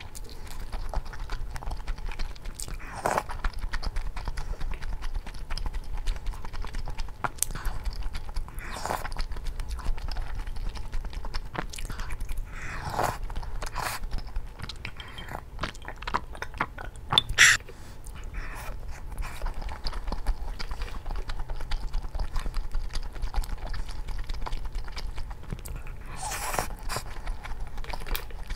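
A person eating close to the microphone: steady chewing and biting with many small mouth clicks, a few louder short sounds scattered through, and one sharp, bright sound about seventeen seconds in.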